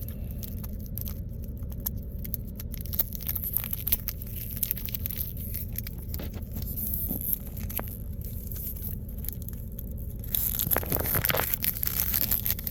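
Wax wrapper of a 1992 Fleer baseball card pack being picked at and torn open one-handed, with scattered crinkles and clicks. It turns to louder tearing and rustling for the last two seconds or so, over a steady low rumble.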